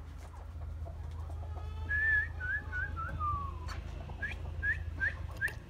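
Clear whistled notes: a held note, a few wavering notes and a long falling glide, then four short rising whistles in quick succession.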